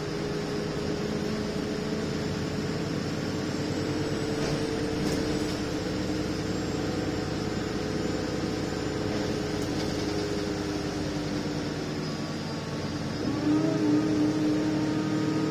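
Cabin sound of an Alexander Dennis Enviro 300 single-deck bus on the move: a steady engine drone under road and tyre noise. Near the end the engine note shifts and climbs and grows louder as the bus pulls harder.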